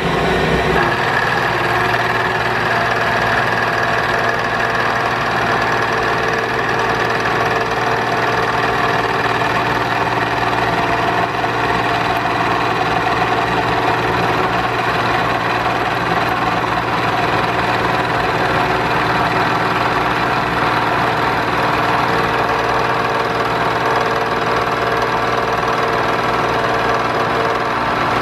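Milling machine running steadily, its cutter squaring up the rough plasma-cut edge of a thick metal block.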